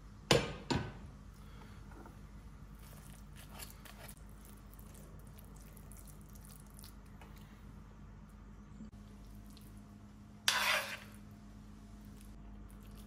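A glass pot lid clinks twice sharply near the start. Then a metal spoon stirs thick bread-and-tomato soup in an enamelled cast-iron Le Creuset pan with soft scattered scraping, and a brief louder scrape comes about ten and a half seconds in.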